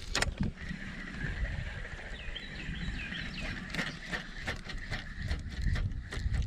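Wind buffeting the microphone in a low rumble, with scattered sharp clicks from handling a spinning rod and reel. A faint steady high whine and a few small chirps, likely birds or insects, run in the background.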